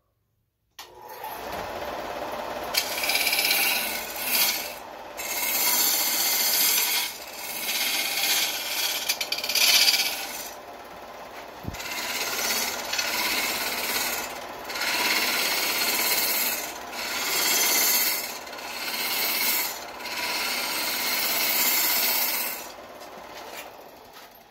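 Wood lathe with a gouge cutting a spinning wooden bowl: a hissing, scraping cut in repeated passes of a second or two each, about ten in all. It starts about a second in and stops near the end, leaving only the lathe running quietly.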